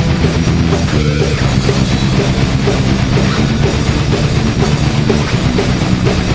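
Electric guitar, a Music Man, playing a rock lead line over a backing track of bass guitar and drum kit.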